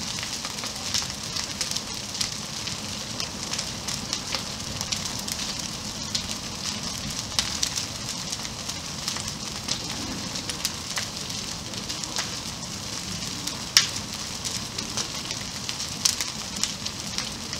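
An ATV burning in an open shed: the fire crackles and hisses steadily with many small pops, and one louder pop about fourteen seconds in.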